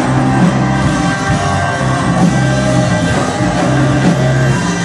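Live folk-rock band playing loudly: a dhol drum beating over electric guitar, double bass and keyboards, with a strong, steady bass line.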